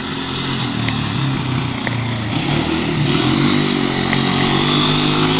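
ATV engine running, its pitch rising a little about halfway through and then holding steady at higher revs.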